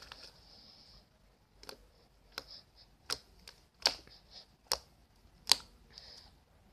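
Irregular sharp clicks and snaps, about eight of them, from hands handling something soft close to the microphone, with faint hiss between them; the loudest snap comes about five and a half seconds in.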